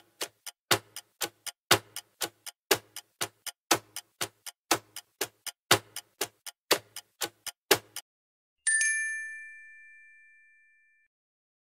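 Clock-ticking countdown sound effect, about four ticks a second for some eight seconds, then a single bell ding that rings out and fades over about two seconds, marking time up.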